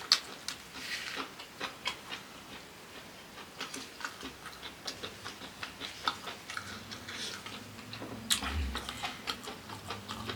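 A person chewing food close to the microphone, with irregular wet clicks and crunches at about two to three a second. There is a louder low bump about eight seconds in.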